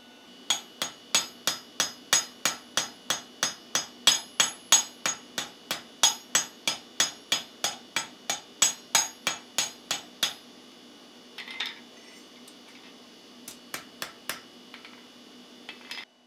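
Hand hammer striking a small steel strap in a bottom swage on the anvil, about three blows a second for roughly ten seconds, each blow ringing. Light swaging to shape the strap to the handle's profile; a few faint metallic clinks follow as the strap is handled.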